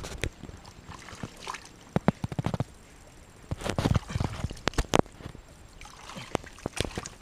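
Hands digging through wet mud and shallow water, with irregular squelches and sloshing splashes.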